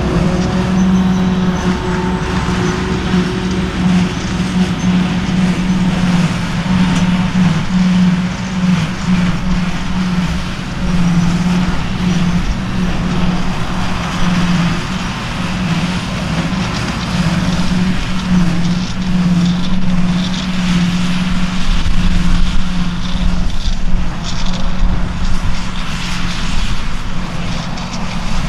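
Claas Jaguar 950 forage harvester running under load as it chops grass, its engine and chopper making a loud, steady drone with a slight pulsing. The Fendt tractor pulling the silage wagon runs alongside it.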